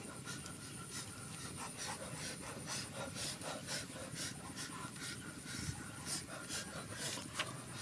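Knife cutting and scraping through cooked pork skin on a wooden board, with many small irregular clicks and crackles from a wood campfire.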